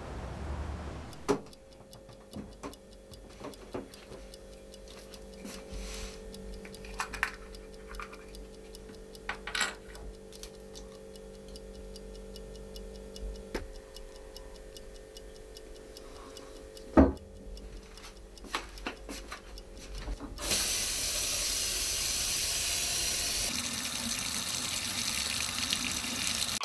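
A quiet room with a steady low hum and scattered small clicks and knocks, one sharper knock about two-thirds of the way through. Then a kitchen tap is turned on and water runs steadily from the chrome spout for the last six seconds.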